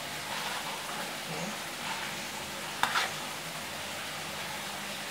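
A metal spoon and small fish being handled in a plastic bowl of wet batter: faint wet sounds over a steady hiss, with one sharp clack about three seconds in.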